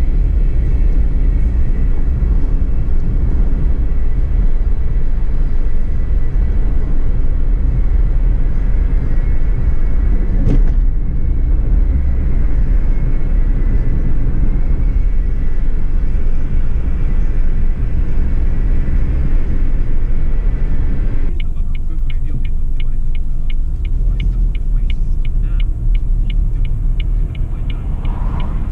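Steady low rumble of road and engine noise inside a Suzuki Alto Lapin kei car on the move. About three-quarters of the way through, the hiss above the rumble drops off and a regular light ticking starts, about three ticks a second.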